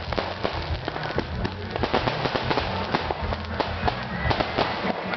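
Firecrackers going off in a rapid, dense run of small sharp pops, over music.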